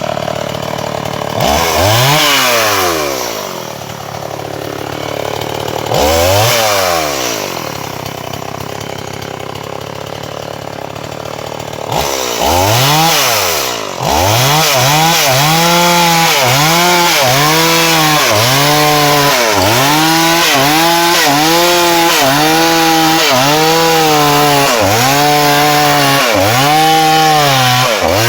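Two-stroke chainsaw blipped up to speed and back twice, then held at high revs cutting into a hard, dry matataúba log, its engine note swinging up and down about once a second as it works through the wood.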